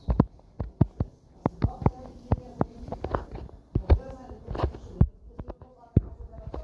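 Irregular soft knocks and clicks, a few a second, with brief faint snatches of a voice between them.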